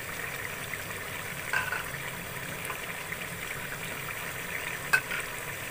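Chicken pieces simmering in oil and their own juices in a cooking pot: a steady bubbling hiss with light crackle. A short click about five seconds in.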